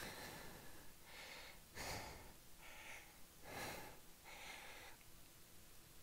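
Faint breathing of a man under effort while holding a prone back-extension exercise: about six short breaths in and out, roughly a second apart.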